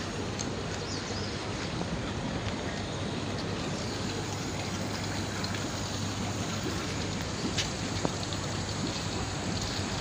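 Steady splashing and rushing of pond water from a fountain jet bubbling up through the surface of a koi pond.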